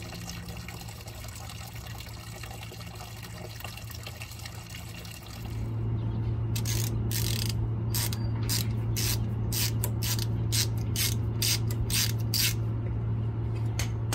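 A steady trickle of running liquid. From about six seconds in, a ratchet wrench clicks in short quick strokes, two to three a second, over a steady low hum.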